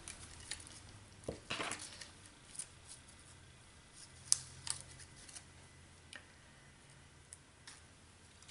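Sparse light clicks and a brief rustle of paper and small craft supplies being handled, the sharpest click a little past the middle, over a faint steady low hum.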